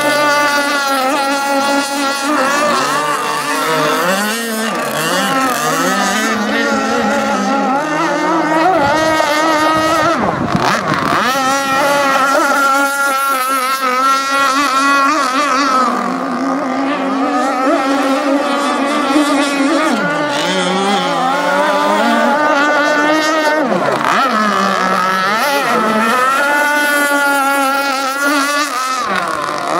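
Radio-controlled racing boat's engine running flat out across the water, a high, continuous note whose pitch keeps rising and falling as the boat speeds up, turns and passes.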